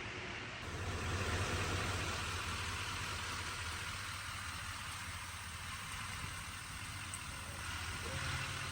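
Heavy truck engine idling steadily with a low rumble, louder from about a second in.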